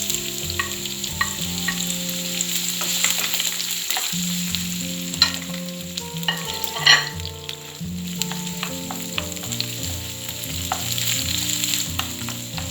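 Finely chopped onions sizzling as they fry in hot oil with garlic, ginger and whole spices, stirred with a spoon that clicks and scrapes against the pan, the loudest clicks about five and seven seconds in.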